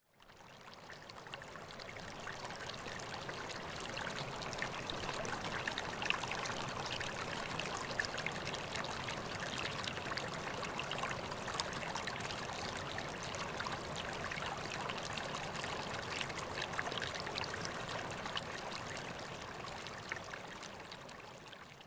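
Small stream running steadily, a continuous rush of water with many tiny splashes. It fades in over the first few seconds and fades out near the end.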